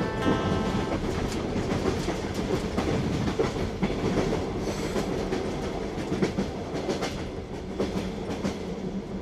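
Train running along the track, its wheels clacking irregularly over the rail joints. Music fades out about a second in.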